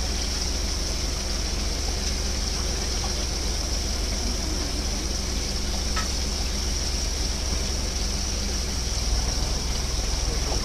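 Steady background noise at the waterside: a low rumble under a constant high-pitched hiss, with no distinct events.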